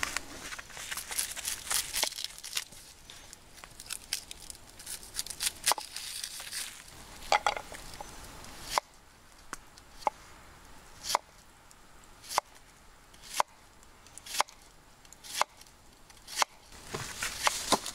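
An onion being peeled by hand with a knife, its dry papery skin tearing and crinkling. From about nine seconds in, the knife slices through the onion onto a wooden cutting board, with a sharp tap about once a second.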